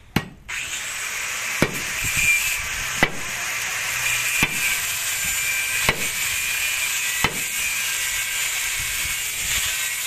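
A hand tool striking hard in a steady work rhythm: about six blows, one every second and a half, over a steady hiss.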